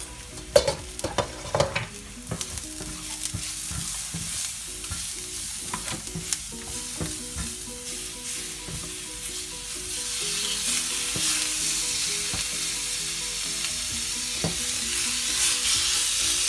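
Onion, garlic and spices frying in coconut oil in a non-stick pan, with a few knocks and scrapes of a wooden spatula against the pan in the first two seconds. The sizzling grows louder about two-thirds of the way through as fish fillets go into the hot pan.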